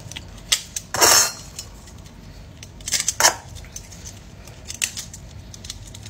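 Metal bangles clinking against one another as they are worked onto a wrist: a scatter of light clicks, with a short rustle about a second in and another around three seconds in.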